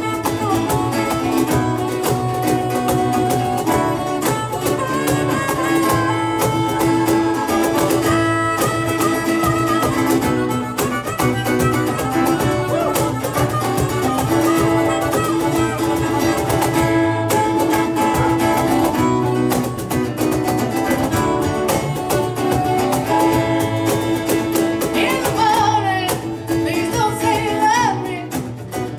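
Live band playing an instrumental passage on acoustic guitar, a second guitar and a drum kit, with steady held notes over the beat. A voice comes in singing near the end.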